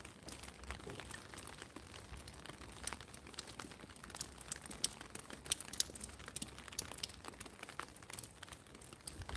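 Raindrops landing on a clear plastic umbrella overhead: an irregular run of quick, sharp taps over a soft hiss of rain on the street.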